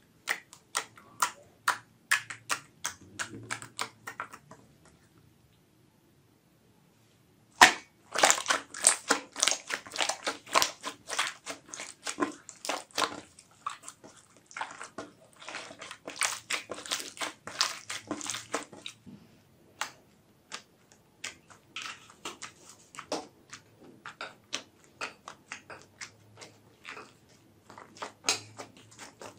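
Hands squeezing and kneading slime: quick runs of sticky clicks and pops as trapped air bubbles burst. It stops for about three seconds a few seconds in, then comes back denser.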